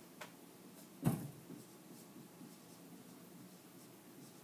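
Dry-erase marker writing on a whiteboard, faint scratching strokes, with one sharp knock about a second in.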